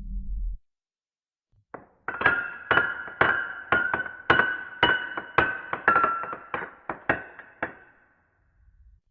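A bright chime-like note struck over and over, two to three times a second, each strike ringing briefly, for about six seconds before it fades out. A low rumble dies away just at the start.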